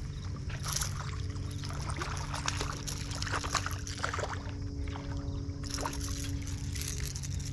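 A motorboat's engine running with a steady hum, with water splashing and lapping over it in many short crackles.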